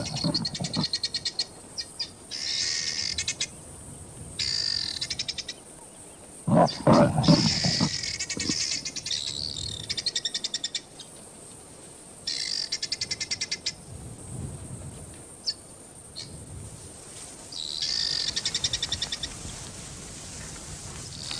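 Wild animal calls: a rapidly pulsing high trill, about a second long, repeats every couple of seconds. A deep low call sounds at the start and again, louder, about six and a half seconds in.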